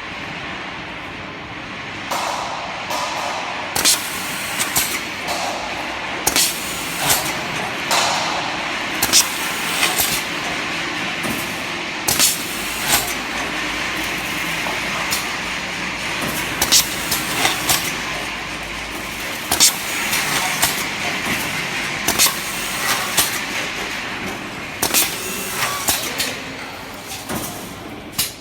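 CNC sash assembly machine for PVC window sashes running, a steady mechanical noise with many sharp clacks and knocks at uneven intervals. A low hum joins in from about twelve to twenty seconds in.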